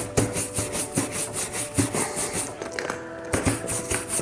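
A wooden-backed bristle brush buffing a protectant finish on a leather keychain. It makes quick back-and-forth rubbing strokes, about four a second, with a short pause about two and a half seconds in.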